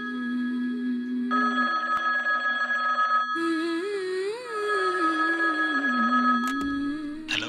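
Rotary telephone bell ringing in bursts over a slow, wandering melody. The ringing stops about six and a half seconds in, followed by a couple of sharp clicks as the receiver is picked up.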